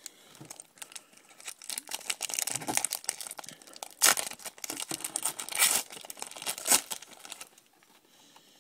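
Foil wrapper of a baseball card pack being torn open and crumpled: a run of crinkling and ripping, with a few sharp, loud crackles in the middle, dying away near the end.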